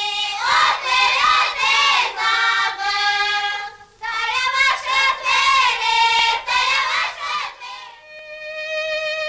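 A group of high voices singing a Slovak folk song in two phrases, with a short break for breath about four seconds in. Near the end the singing stops and a fiddle begins, playing long held notes.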